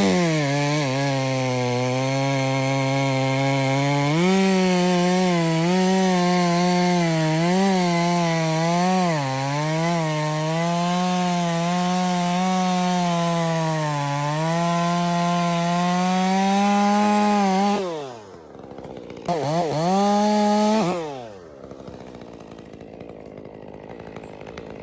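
Two-stroke chainsaw at full throttle cutting wood, its pitch sagging and recovering as the chain loads up in the cut. About 18 seconds in it drops off, revs again briefly for about two seconds, then falls away.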